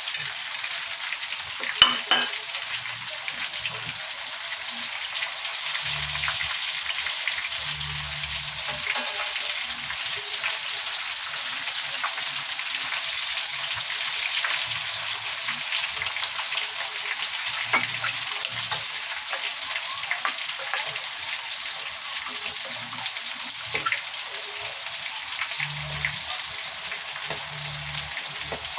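Chicken pieces frying in hot canola oil, a steady sizzle; the pieces are browned and cooked through. A sharp click comes about two seconds in.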